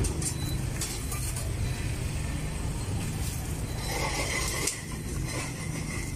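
Busy street ambience: a steady low hum of vehicle traffic, with a few light clinks.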